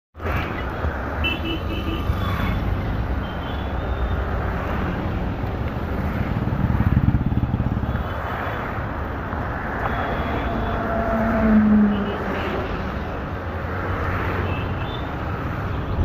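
Steady street traffic noise, with vehicles going by and the sound swelling louder twice, about halfway and about three-quarters through.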